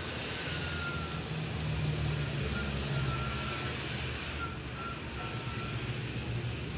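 A low, steady rumble like a motor vehicle's engine running, with faint short high-pitched tones that come and go.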